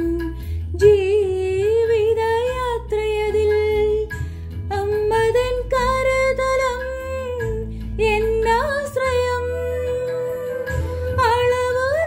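A woman singing a Malayalam Marian devotional song, holding long notes with a slight waver, over an instrumental accompaniment with a steady low bass line.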